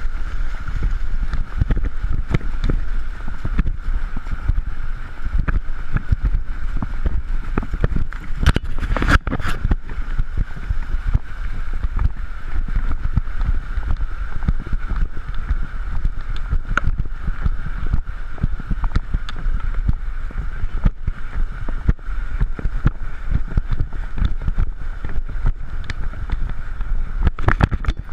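Wind rumbling over a GoPro in its housing, worn on a running greyhound, with irregular knocks and thumps from the jolting of her strides and splashing as she runs through shallow surf.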